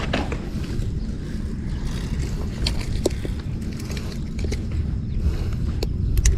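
Low, steady rumble of wind buffeting the microphone, with a few faint clicks.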